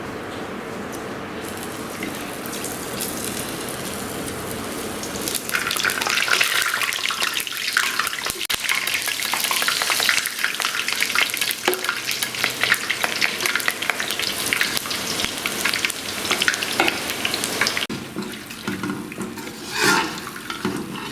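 Boondi frying: gram-flour batter sizzling in hot oil. A steady sizzle turns into loud, dense crackling about five seconds in, then eases off near the end.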